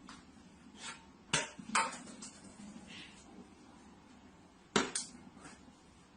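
A handful of sharp knocks and clinks of hard objects, irregularly spaced, with a loud pair near the end.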